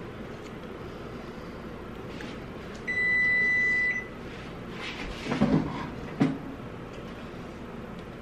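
A kitchen appliance's electronic beep, one steady high tone held for about a second, about three seconds in. A couple of seconds later come a few dull knocks and scrapes of a stainless steel mixing bowl being handled over aluminium cake pans as batter is poured.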